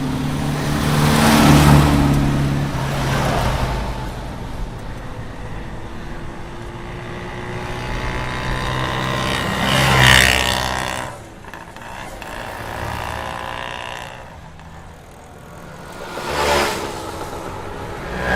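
Road traffic: motor vehicles passing close by one after another, each swelling up and fading away over a steady engine hum. The three loudest pass-bys come about a second and a half in, around the middle, and a short, sharper one near the end.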